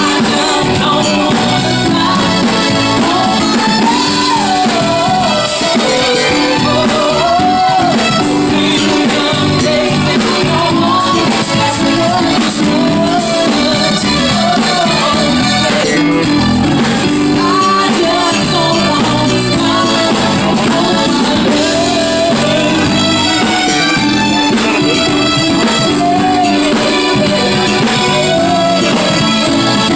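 A woman singing into a microphone with a live band behind her, keyboard and a steady beat.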